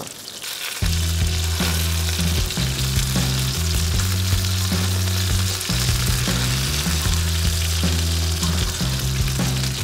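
Panko-breaded cod pieces sizzling steadily in hot oil on a Muurikka griddle pan, with a few light clicks as tongs turn and lift them. About a second in, background music with a deep bass line comes in and runs under the sizzle.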